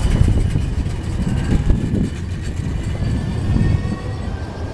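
Siemens Avanto tram-train pulling away along the platform: a low rumble of wheels on the rails, with a faint motor whine rising slowly in pitch as it gathers speed.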